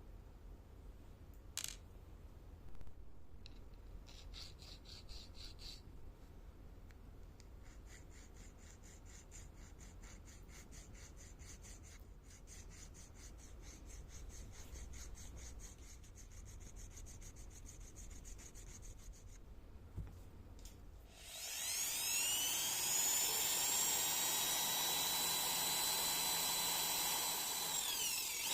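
Faint rubbing and scraping of small hand work, then, about three-quarters of the way in, a small electric rotary tool or mini drill starts with a rising whine and runs steadily at high speed.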